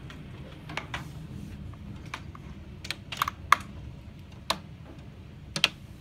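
Heavy rain: about ten sharp, irregular taps, the loudest about halfway through, over a low steady rumble.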